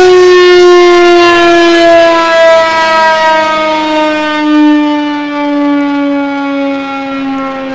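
Federal Signal 2001 electromechanical outdoor warning siren winding down: a single loud wail sliding slowly lower in pitch and gradually fading, wavering in loudness as it goes.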